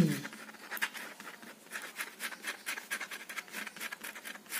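Ballpoint pen scratching across the drawing surface in quick, short, uneven strokes, several a second, as lines are hatched in. Right at the start a short falling voice sound fades out.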